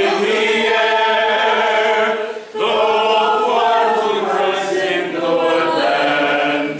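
A small group of men and women singing a song together, with a short break for breath about two and a half seconds in.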